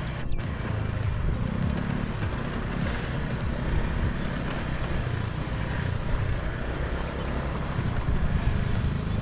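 Motorcycle engine running on a dirt track, its note rising and falling with the throttle, under steady wind noise on the microphone.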